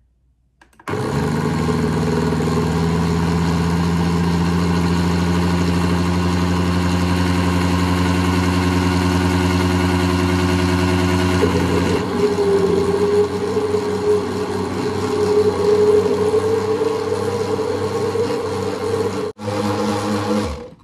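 Countertop blender motor starts about a second in and runs steadily, blending a thick cream-cheese and condensed-milk cheesecake filling. Its tone shifts about halfway through, it cuts out for an instant near the end, then stops.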